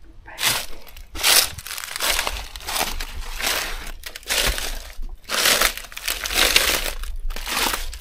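Footsteps on dry fallen leaves at a walking pace, roughly one step a second.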